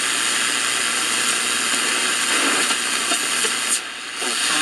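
Steady hiss of shortwave band noise from an RCA AR-77 tube shortwave receiver's speaker, with faint station audio underneath in the middle. The hiss drops out briefly near the end.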